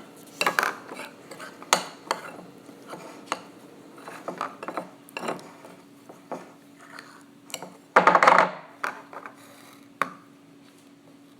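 A utensil clicking, knocking and scraping against a small container as sticky slime is scraped into it, with a louder rattling clatter about eight seconds in.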